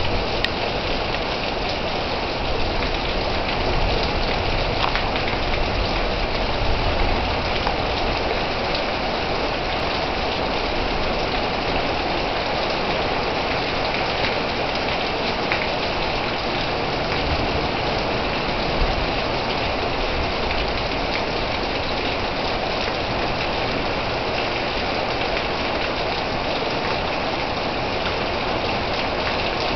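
Heavy rain falling steadily, an even, unbroken downpour.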